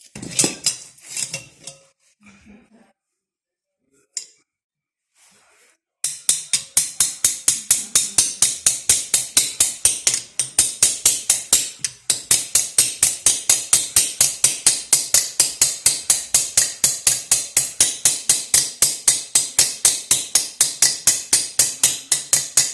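Swaging tool expanding the end of a copper refrigerant tube: a fast, even train of sharp metallic clicks, about five a second, starting about six seconds in after a few scattered handling knocks.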